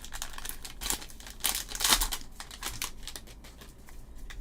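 Plastic wrapper of a trading-card value pack crinkling and being torn open: a run of sharp crackles, loudest around the middle.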